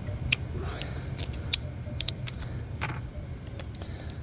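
Small sharp clicks and ticks, about a dozen scattered irregularly, from a plastic coil pack connector and a pin tool being handled, over a steady low hum.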